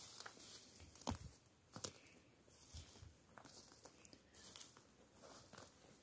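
Faint footsteps on a forest floor of moss and dry twigs, with scattered light cracks and rustles; the sharpest crack comes about a second in.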